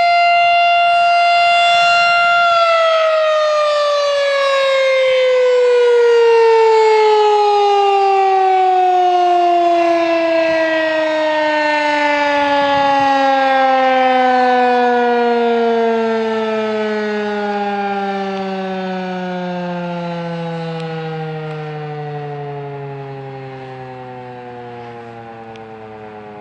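Federal Signal 2001-DC battery-powered rotating outdoor warning siren ending its steady test tone: for about two and a half seconds it holds its pitch, then it winds down, the pitch falling smoothly and slowly as the rotor coasts to a stop. The sound swells and fades in loudness as the siren head turns.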